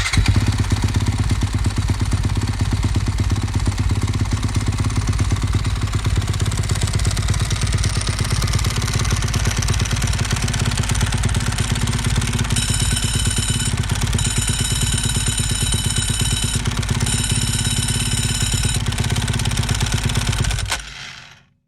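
Honda supermoto single-cylinder engine running steadily with the clatter of an open, oil-free dry slipper clutch, the Ducati-like rattle that is normal for such a clutch and not an engine fault. A high-pitched whine comes and goes in the second half, and the engine cuts off near the end.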